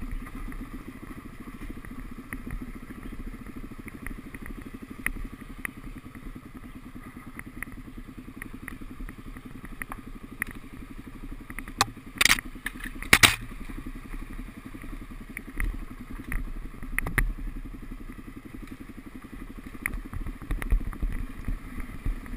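Dirt-riding motorcycle engine running at steady, moderate revs over a rough trail, with scattered knocks and clatter from rocks and the bike's chassis. There are two loud bangs about halfway through as the bike crosses a rocky patch.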